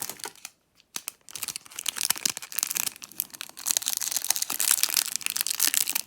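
Plastic wrapping crinkling and tearing as it is handled and pulled off game cards; it starts about a second in and gets louder and busier from about halfway.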